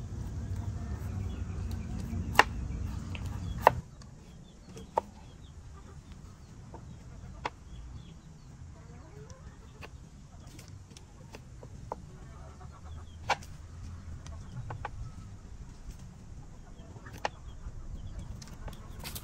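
A large knife chopping pumpkin on a wooden cutting board, giving sharp single knocks every second or few seconds, with chickens clucking in the background. A low rumble fills the first four seconds, then stops abruptly.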